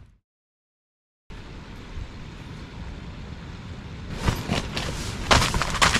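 About a second of dead silence at an edit, then a steady low rumble. From about four seconds in, rustling and handling noise grows louder over it, as someone moves about close to the microphone.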